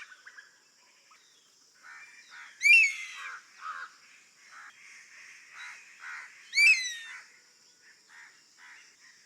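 Crested honey buzzard calling: a loud, high, falling whistled call given twice, about four seconds apart. Softer short notes come between the calls over a faint steady high hiss.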